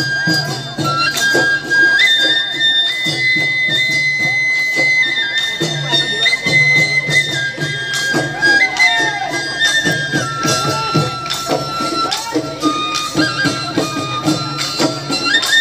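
Live Bihu folk music: dhol drums beating steadily under a high wind instrument that holds long notes, stepping up and down in pitch.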